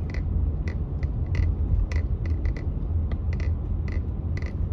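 Car driving, heard from inside the cabin: a steady low rumble of road and engine noise, with light irregular clicking rattles about every half second.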